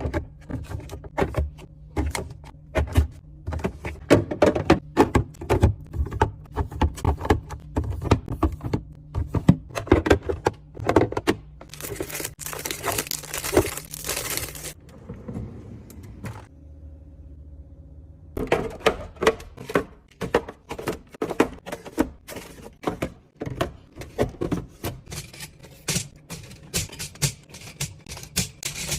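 Irregular clicks, taps and thunks of plastic and glass containers, lids and packaging being handled and set into a fridge. There is a few seconds of steady hiss about twelve seconds in.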